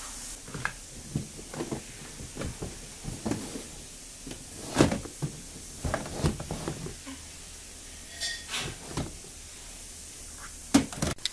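Irregular knocks, clicks and clatters of household things being handled and put down while tidying up, with a sharper knock near the end.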